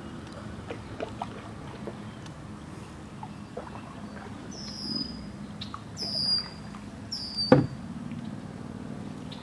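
A small bird calls three times, each a short, high falling whistle about a second apart, over the light drips and trickles of a canoe being paddled. Just after the third call comes one sharp knock, the loudest sound.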